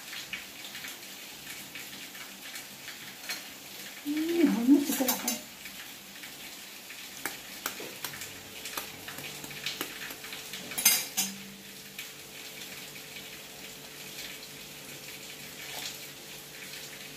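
A metal spoon clinking and scraping in a stainless steel mug of batter, with scattered sharp taps as an egg is knocked against the rim and cracked in.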